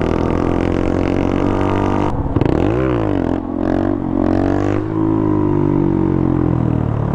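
Small single-cylinder mini motorcycle engine running steadily under way; about two seconds in the sound changes abruptly, and the engine is blipped up and back down in pitch, followed by a few smaller wavering revs before it settles to a steady run again.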